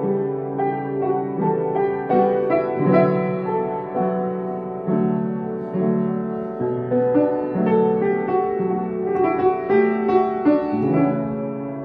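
Piano playing, notes and chords struck one after another and ringing over each other.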